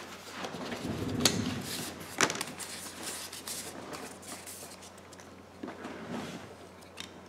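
Handling sounds at a repair bench: a couple of sharp clicks and knocks with rustling, then lighter crackling of plastic protective film being peeled off an iPhone 11's new screen.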